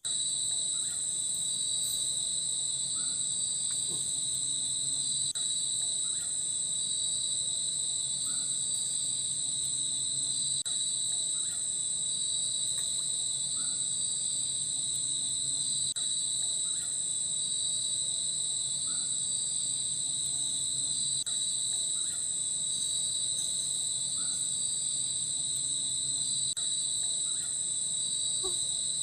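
Forest insect chorus, a continuous high-pitched steady drone with a pulsing rhythm woven through it, with faint short calls repeating about every two seconds.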